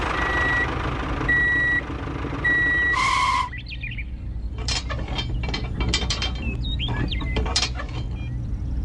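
Three electronic reversing beeps over a steady low engine rumble as the toy tractor backs up to the trailer hitch. A few seconds in, a run of small metallic clicks and squeaks as the metal hitch pin is worked into the hitch rings.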